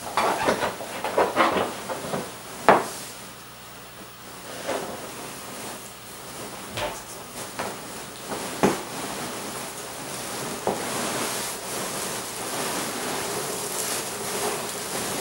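A large cardboard box full of foam packing peanuts being handled: irregular knocks and scrapes of cardboard, then steadier rustling as the peanuts shift and spill out while the box is tipped over.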